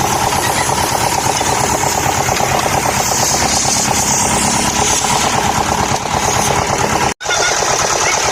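Electric power carving tool running steadily as it cuts into MDF, a dense rapid buzz; the sound breaks off for an instant about seven seconds in.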